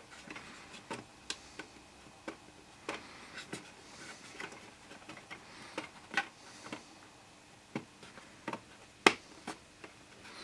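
MDF paint-rack pieces being pressed together by hand: light, irregular clicks and taps as the tabs seat into their slots and the MDF flexes, with one sharper click about nine seconds in.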